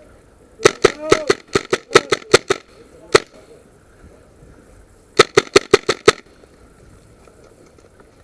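Airsoft guns firing in quick strings of sharp cracks: about a dozen shots in the first two seconds, a single shot, then about six more a little after five seconds in.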